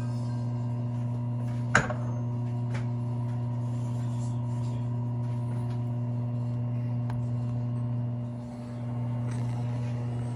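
Steady electrical hum from a running appliance. A single sharp clink comes a little under two seconds in, and the level dips briefly about eight seconds in.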